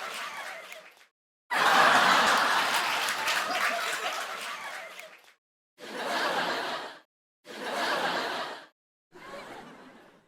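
Laughter sound effects: a long, loud burst of laughter that fades out, followed by three shorter laughs, each cut off by a brief silence.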